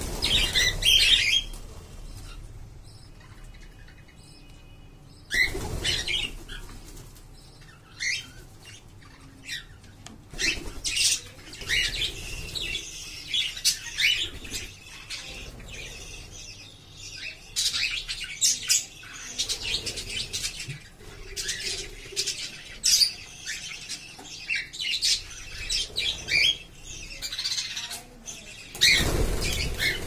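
A flock of budgerigars and cockatiels chirping and squawking with many short, high calls. Bursts of wing flapping come at the start, about five seconds in, and near the end as birds take off.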